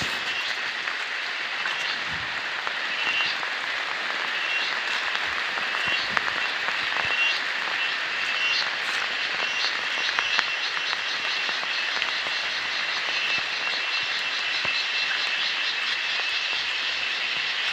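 A chorus of repeated chirping animal calls over a steady hiss, the calls running into quick trills at times in the second half.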